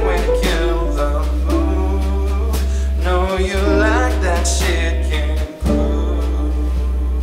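Live band music: a man singing, his pitch wavering on held notes, over sustained deep bass notes and keyboard, with mallet percussion.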